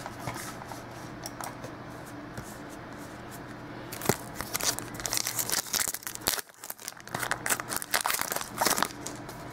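A trading-card pack's wrapper crinkling and tearing as it is opened by hand, a quick irregular run of crackles starting about four seconds in. Before that there is only a low steady room hum.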